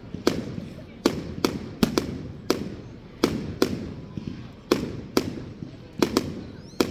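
Fireworks exploding in a rapid, irregular series of sharp bangs, about two a second, each fading out in a short echo.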